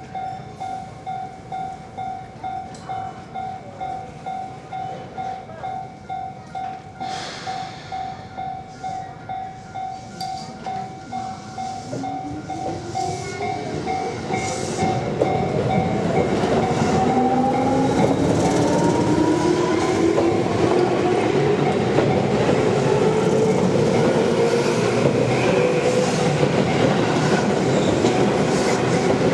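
Japanese level-crossing warning bell ringing in a steady, even 'kan-kan' pulse, just under two strikes a second. About eleven seconds in, an electric train comes through: its motors give a whine that rises steadily in pitch, and the passing train grows loud and stays loud, drowning out the bell.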